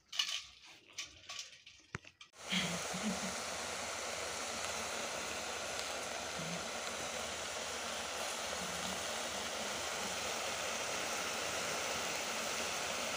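Faint clicks of a spoon against a steel bowl as the covers are prised off boiled snails, then, a couple of seconds in, a steady hiss of a pot of snail and gourd curry cooking over a gas burner.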